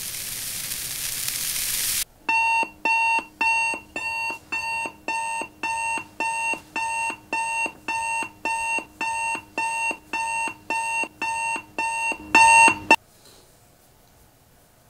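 A steady hiss growing louder, then a digital bedside alarm clock beeping about twice a second for some eleven seconds. The last beeps are the loudest, and it cuts off suddenly.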